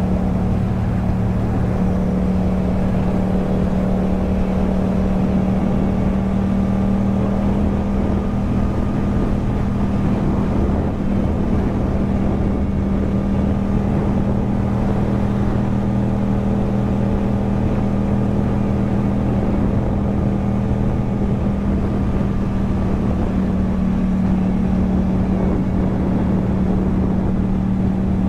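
Yamaha MT-07's parallel-twin engine running through an Akrapovič exhaust at a steady cruise, its pitch holding almost constant with only a slight easing of the throttle mid-way.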